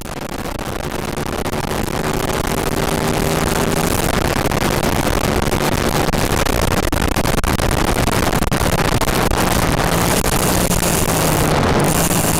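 Aprilia Tuono V-twin motorcycle engine running at speed, its engine note under a heavy rush of wind noise. The sound swells in over the first couple of seconds, then holds steady.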